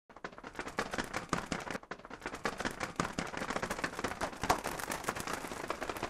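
A paper origami bird on a popsicle-stick lever being worked by hand: dense, irregular crackling and clicking of paper and wooden sticks, with a short lull a little under two seconds in.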